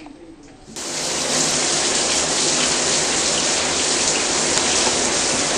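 Running water, turned on abruptly under a second in, then pouring and splashing steadily.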